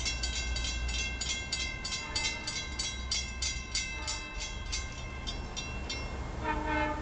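A railroad crossing bell rings rapidly, about four strokes a second, and stops about six seconds in. Near the end the approaching LIRR C3 cab car sounds a low horn blast, over a steady low rumble.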